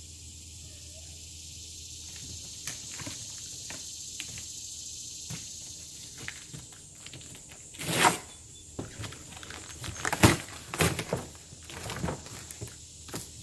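Cardboard shipping box being torn open by hand. A steady faint hiss runs through the first half, then from about six seconds in come several sharp rips and scrapes of cardboard as the flaps are pulled open.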